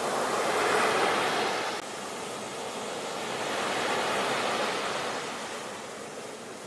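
Sea waves breaking and washing up a beach: a continuous rush of surf that swells in the first second or so, drops suddenly near two seconds in, builds again with the next wave and eases off toward the end.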